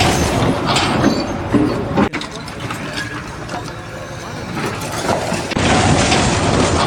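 Construction-site noise with machinery engines running and clanking, changing abruptly about two seconds in and again near the end.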